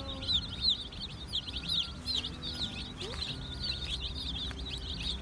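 Brood of Cornish Cross broiler chicks peeping, many short high peeps overlapping without a break.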